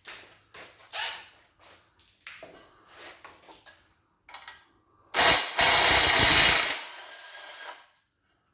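Light clinks and clanks of tools and engine parts, then an impact wrench runs in one loud burst of about a second and a half, trailing off more quietly before stopping, as a fastener on the engine is spun loose.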